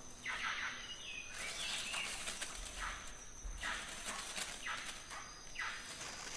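Soft rustling of leaves and undergrowth in five or six short swishes, a hand-made Foley effect for a chimpanzee moving through the forest floor. A faint steady high tone sits underneath.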